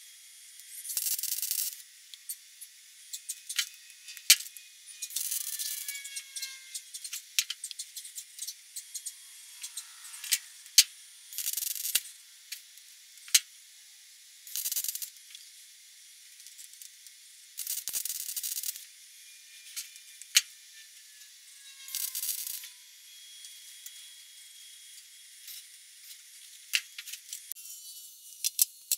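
Wire-feed (MIG) welder laying short stitch welds on a sheet-steel patch panel: about six separate bursts of crackling hiss, each up to a second long. Sharp clicks come in between the bursts.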